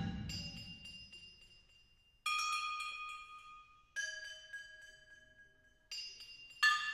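Metal percussion struck one note at a time: about five sharp strikes a second or two apart, each leaving several clear, bell-like tones that ring and fade. It opens on the dying ring of a louder, deeper strike.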